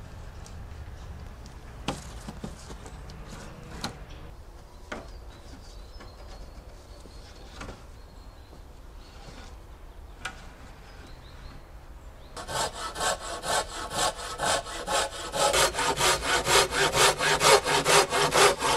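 Hand saw cutting through a wooden pole with steady back-and-forth strokes, about two to three a second. It starts about two thirds of the way in and is loudest near the end. Before it come a few scattered knocks of wooden poles being handled.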